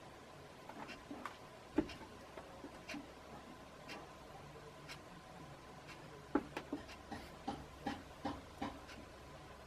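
Casablanca Panama ceiling fan running quietly on its slowest speed, with a faint steady hum and irregular light ticks and clicks, about one a second at first and coming faster later on.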